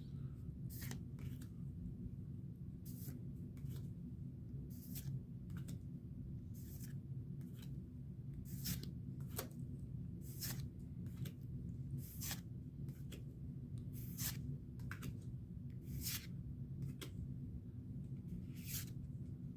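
Pokémon trading cards being flipped through one at a time from a freshly opened booster pack, a short crisp card slide about once a second. A steady low hum runs underneath.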